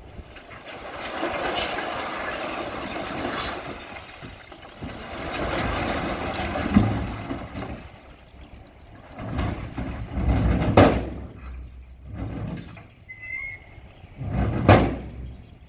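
Bulldozer pushing rock: two long stretches of rough scraping noise, then three sharp clanks about four seconds apart, with a brief high squeal shortly before the last clank.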